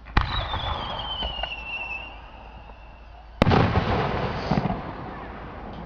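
Fireworks display: two sharp bangs about three seconds apart, each trailing off into a fading rumble. After the first, a high whistle falls slowly in pitch for about two seconds.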